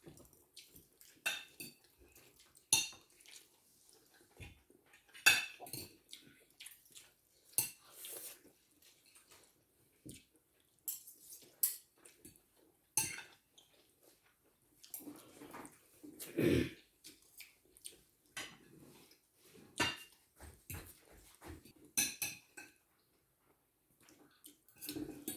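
Cutlery clinking and scraping against plates and bowls during a meal, in irregular sharp clinks with short pauses, and a longer, softer rustle about two-thirds of the way through.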